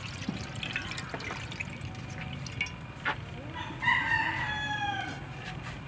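A rooster crows once, about four seconds in: one long call that falls slightly in pitch toward the end. Before it, liquid splashes as it is poured into a frying pan.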